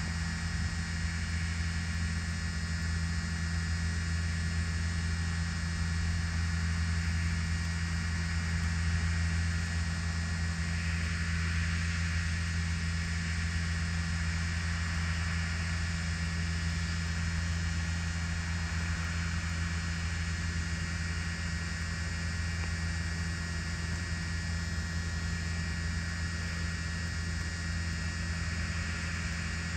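Combine harvester's engine running steadily under load while it cuts rice, a continuous low hum.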